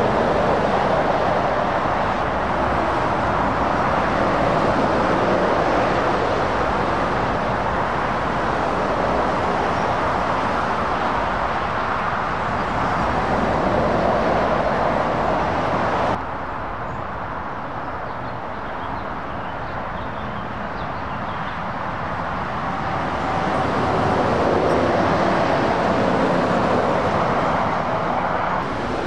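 Articulated lorries, Scania tractor units pulling curtainside trailers, passing at road speed: steady tyre and engine noise that swells and fades as each goes by, with a sudden drop about halfway through.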